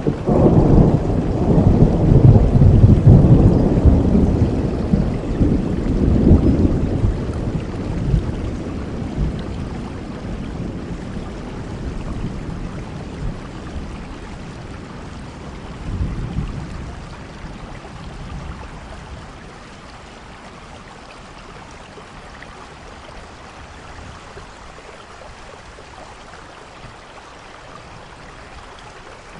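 Thunder rumbling loudly and rolling away over the first several seconds, with a smaller rumble about halfway through, over steady rain falling throughout.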